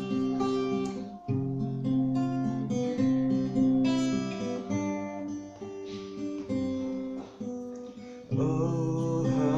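Acoustic guitar playing the intro of a song, a run of picked notes and chords, growing louder about eight seconds in.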